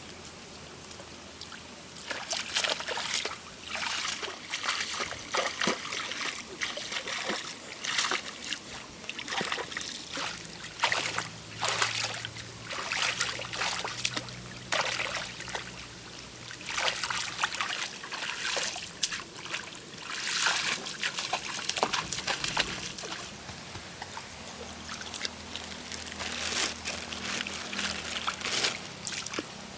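Water sloshing and splashing in irregular strokes, as from hands or feet working in shallow water, starting about two seconds in; a faint low drone comes and goes beneath it.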